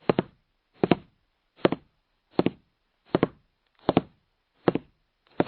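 A steady series of eight short double knocks, about one every three-quarters of a second, with silence between them.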